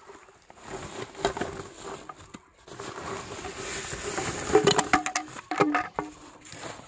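Woven plastic sack rustling as bamboo fish-trap tubes are tipped out of it onto grass. The hollow bamboo tubes knock together several times in the second half.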